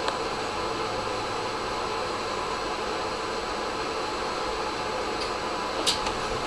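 Karlsruhe tram standing at a stop, its ventilation fans and onboard equipment running with a steady whirring hum, with a short click at the start and another faint click near the end.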